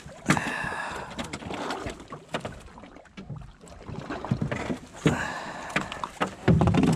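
Sea water slapping and sloshing against the hull of a small boat rocking in the swell, with scattered knocks. Two longer splashy washes come just after the start and again about five seconds in.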